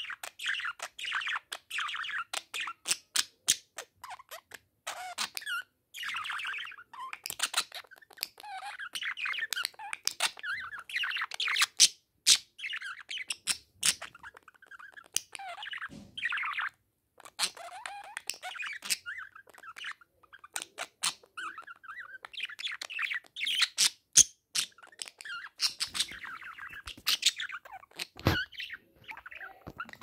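Budgerigars chattering to their reflection in a mirror: a continuous, rapid warbling chatter full of short chirps and squeaks, mixed with many sharp clicks.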